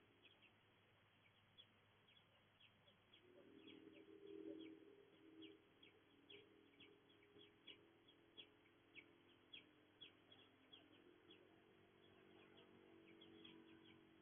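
Faint, repeated short bird chirps, each a quick downward note, one or two a second throughout. Under them is a low steady drone that swells about four seconds in.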